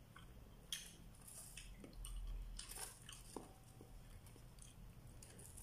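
Faint eating sounds: chewing, with scattered short crackles from the foil and plastic wrapping as flatbread is torn by hand.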